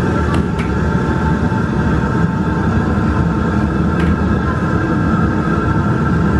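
Wontons deep-frying in a wok of bubbling oil under a steady, loud low rumble typical of a commercial gas wok burner, with a few light clicks of a metal spatula against the wok.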